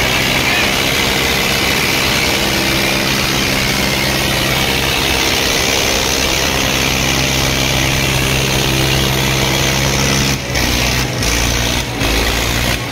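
Diesel tractor engines running steadily at a constant pitch, pulling against each other in a tractor tug-of-war. The sound dips briefly a few times near the end.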